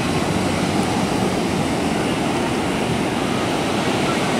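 Ocean surf breaking on the beach, a steady, even rush of noise.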